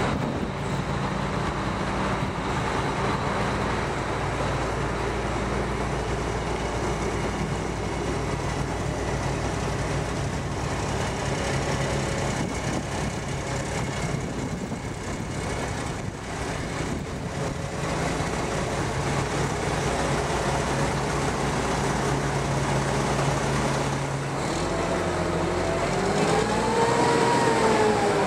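Mack CV713 Granite roll-off truck's 335 hp Mack diesel engine running with a steady low drone. The engine note shifts near the end, where a wavering whine that slowly rises and falls joins in.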